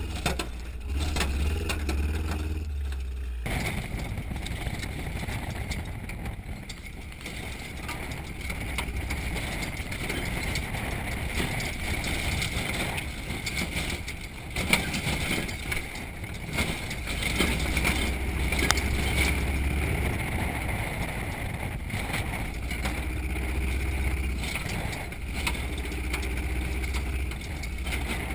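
Off-road trophy truck driving fast over a dirt road, heard from inside the cab: the engine's steady low rumble mixed with road and wind noise. Sharp knocks and rattles come from the body and suspension over the rough surface. The sound changes abruptly about three and a half seconds in.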